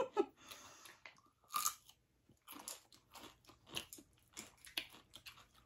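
Close-up crunchy chewing and biting of food, with irregular crisp crunches a couple of times a second.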